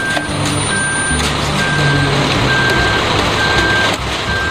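Concrete mixer truck's backup alarm beeping, about one beep a second, over the steady noise of the running truck as it discharges concrete down its chute.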